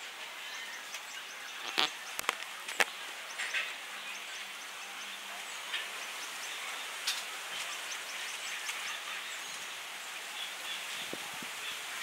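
Steady outdoor background ambience with faint high chirps, broken by three sharp taps about two seconds in.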